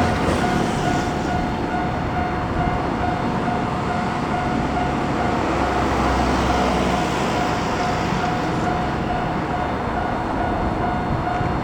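Japanese railway crossing alarm ringing its repeated electronic 'kan-kan' tone at a steady pace, over a steady rumble.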